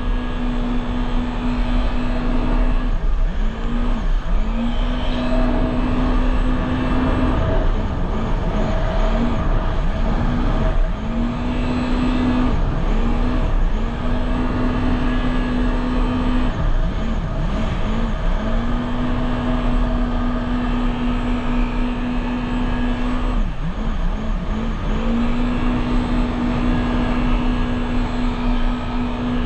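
Jet ski engine running at speed with a steady high tone that dips briefly and climbs back several times, over a heavy low rumble.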